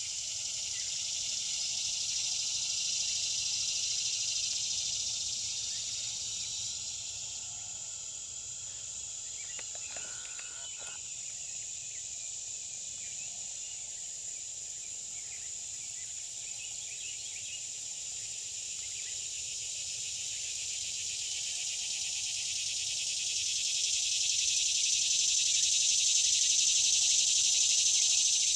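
Steady high-pitched chorus of insects, swelling louder during the first few seconds and again near the end.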